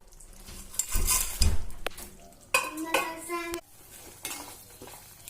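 Fried bitter gourd pieces tipped into a pan of simmering pickle masala and stirred with a metal spoon: spoon scraping and clinking on the pan, with light sizzling.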